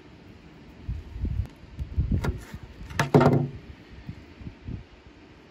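Handling noise as hands work a fish and lemon on a plastic cutting board: a few dull bumps, then a sharp click about three seconds in, followed by a brief pitched creak.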